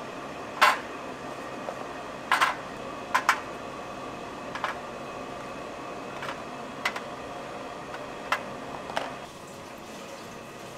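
A string of short, sharp clicks and knocks at irregular intervals as crisp chocolate tart shells are handled and set against a plastic container and each other, over a steady room hum.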